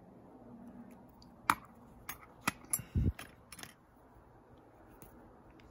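Small sterling silver souvenir spoons clicking and clinking against one another as they are handled and set down: about six sharp ticks over two seconds, one with a soft thump.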